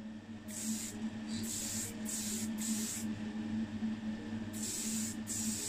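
Aerosol can of black primer spraying a diecast casting in short hissing bursts, about six of them with a pause in the middle, over a steady low hum.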